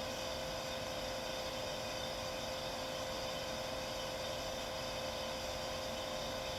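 Hair dryer running steadily: an even rush of blown air with a constant motor whine.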